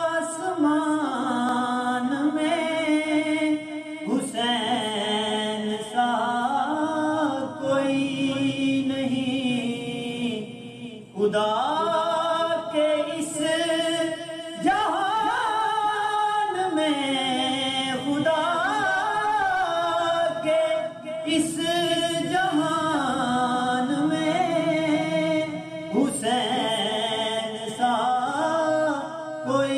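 A man singing solo and unaccompanied: an Urdu devotional song in praise of Imam Hussain, sung in long phrases of held, ornamented notes that waver in pitch, with short breath breaks between lines.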